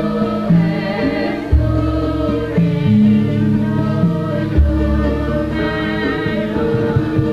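Background music with choral singing over held chords, and a low bass note that comes in about every three seconds.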